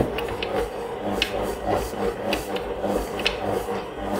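Stand mixer running with its dough hook kneading bread dough: a steady motor hum, with the dough knocking and rubbing against the bowl about twice a second.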